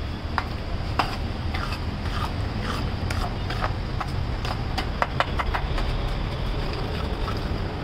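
A steel spatula scrapes and clinks against a large flat iron tawa as masala is stirred into hot oil, with irregular strokes about every half second. Under it runs a steady low rumble.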